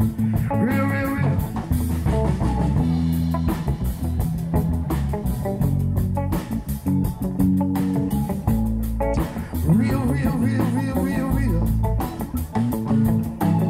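Instrumental stretch of a rock song between sung lines: guitar over a steady bass line and drum beat.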